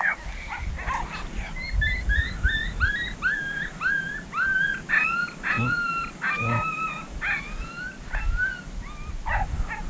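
Coyote-pup whines and yips: a quick run of short, high, rising cries, about two a second, over a low wind rumble.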